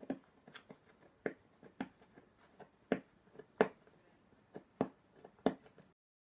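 Fingernails picking and scratching at the sealed flap of a small cardboard box: a run of sharp, irregular clicks and scrapes, two or three a second, that cuts off suddenly near the end.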